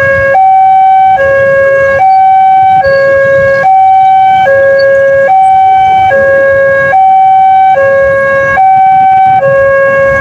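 Electronic railway level-crossing warning siren, the newly fitted Daop 2 Bandung type, sounding a loud two-tone alternation: a lower and a higher tone swap back and forth, each held just under a second. The clean tones show the hoarse old siren has been replaced.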